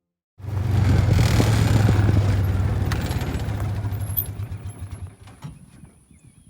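Motor vehicle engine running with a low, steady hum and some rattle, cutting in abruptly about half a second in and fading away over the next few seconds.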